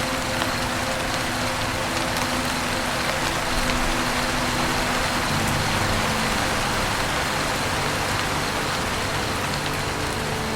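Steady, dense rain falling on a roof, with no thunder. Under it are soft, low, held tones that shift pitch about halfway through.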